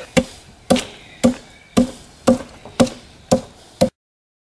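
Bottoming adze chopping into a wooden chair-seat blank to hollow it out: eight sharp strikes, about two a second, then the sound cuts off abruptly.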